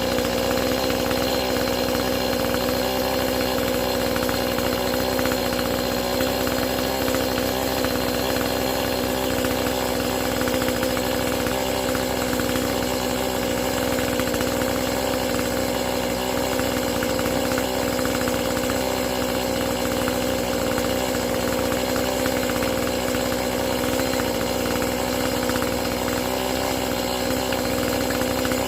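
Two-stroke chainsaw engine running at a steady, unchanging speed.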